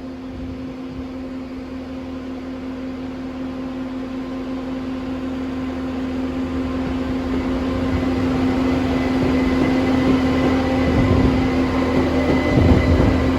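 Class 171 Turbostar diesel multiple unit standing at the platform with its engines running, a steady droning hum that grows gradually louder.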